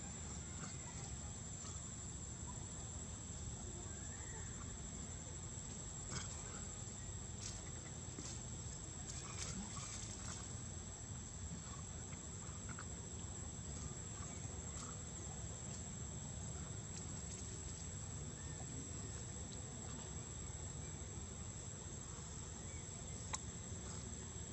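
A steady, high-pitched insect drone runs over a low background rumble, with a few short clicks scattered through.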